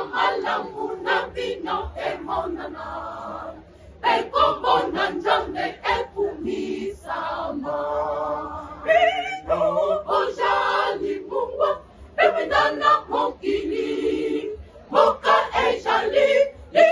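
Mixed choir of women's and men's voices singing together, in sung phrases with short breaks between them.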